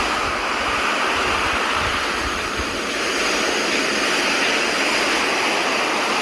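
Sea waves washing on the shore as a steady rushing surf, dipping slightly just before halfway, with a low irregular rumble underneath.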